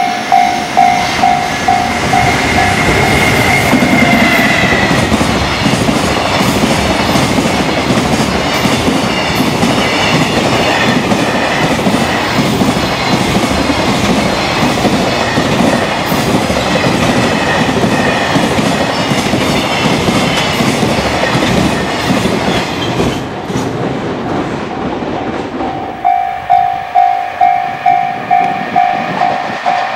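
A long high-speed container freight train passes close by, its wheels clattering steadily over the rail joints. A Japanese level-crossing bell rings in a rapid repeating ding at the start, is drowned out by the train, and is heard again near the end.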